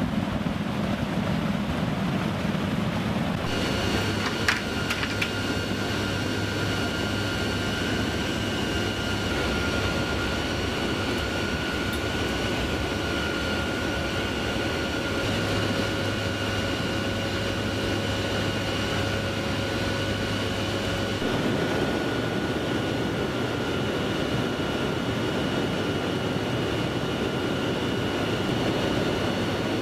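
Steady engine drone of a military transport aircraft heard from inside its cargo cabin, with a high steady whine laid over it. A few sharp clicks come about four seconds in.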